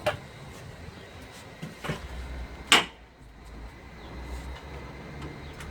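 Three sharp clicks and knocks from handling the frame profile and plastic fittings of a pleated fly-screen door, the loudest almost three seconds in.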